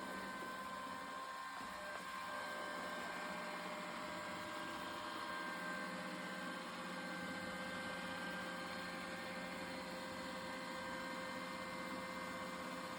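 Xiaomi Robot Vacuum S20 robot vacuum running with a steady motor hum and whine while it locates itself at the start of a vacuuming and mopping run.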